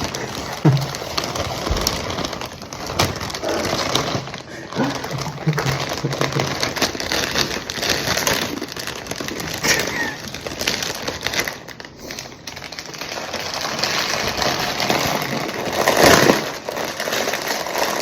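Rustling and crinkling of a plastic snack bag being handled, with irregular crackles.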